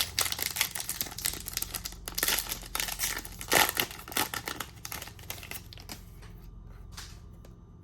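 A trading-card pack wrapper being torn open and crinkled by hand, a busy crackling that thins out about six seconds in.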